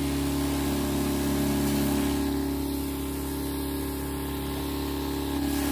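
Knapsack sprayer's pump running with a steady hum while the nozzle hisses out a fine mist of spray.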